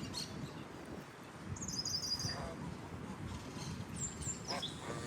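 Geese giving a couple of short calls, one about two seconds in and one near the end, with small birds chirping high above them and a steady low rumble of outdoor noise underneath.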